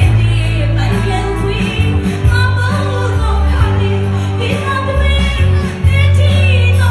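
A woman singing into a microphone over an accompaniment with a strong, steady bass line, amplified through a PA system.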